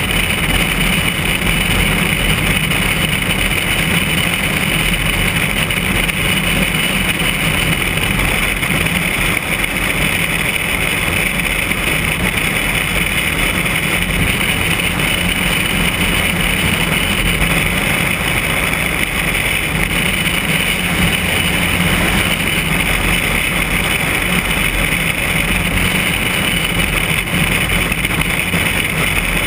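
Single-engine light aircraft's piston engine and propeller droning steadily in flight, with a steady rush of airflow over a camera mounted outside the airframe.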